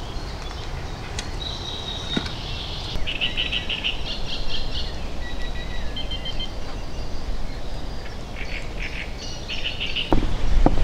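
Songbirds singing: clusters of short, high chirps and whistled notes in two spells, about a second and a half in and again near the end, over a steady low rumble. A few knocks near the end.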